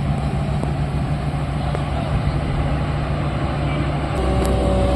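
XCMG XE210 crawler excavator's diesel engine running steadily while the machine works; about four seconds in the engine comes under heavier load, getting louder, and a steady whine joins in.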